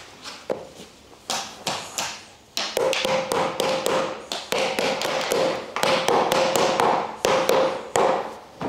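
Rubber mallet tapping wooden shelf slats into a wooden plant-stand frame: a few single knocks, then a fast run of taps about three a second with a woody ringing tone, stopping just before the end.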